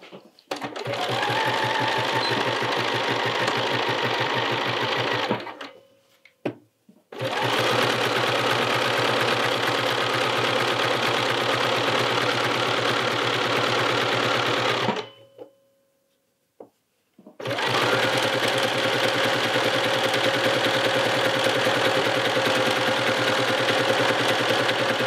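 Bernina electric sewing machine stitching a seam at a steady speed in three runs, stopping twice for about two seconds between them.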